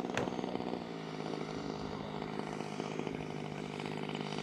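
Engine and propeller of a large-scale RC Hawker Sea Fury model airplane in flight, a steady drone that drops in pitch about a second in. A single sharp click comes just after it begins.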